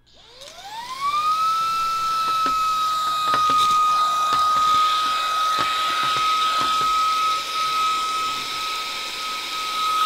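VTOMAN ToolCore V22 cordless handheld vacuum starting up, its motor whine rising over about a second to a steady high pitch and then running steadily. Scattered light clicks come through as the floor head works over Cheerios.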